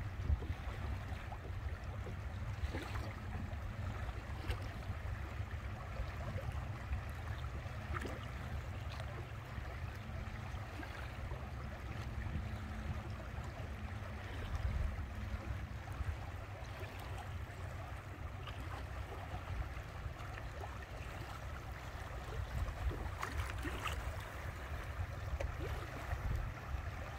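Water rushing and splashing past a moving boat in a strong current, over a steady low rumble, with scattered small splashes.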